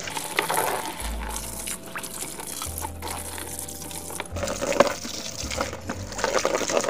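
Water running and splashing over plastic toy vehicles as they are washed, with scattered light clicks of plastic being handled.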